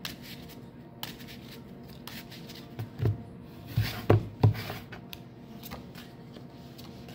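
Tarot cards being shuffled by hand and laid out on a table: light riffling and sliding clicks, with a few soft knocks between about three and four and a half seconds in as cards are put down.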